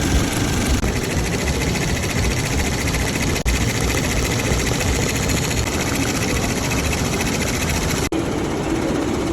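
Embroidery machine running at speed, its needle stitching in a fast, even rattle, with a couple of brief cut-outs.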